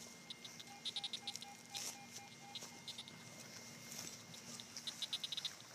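Metal detector giving a string of short, even beeps, about five a second, for about two seconds over a target that is still in the hole. Short, rapid high chirping trills come and go in the background.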